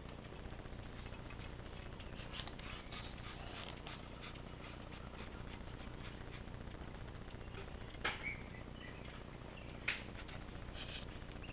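Ducklings peeping in short, high squeaks, scattered and overlapping. Two sharp knocks come a couple of seconds apart in the second half.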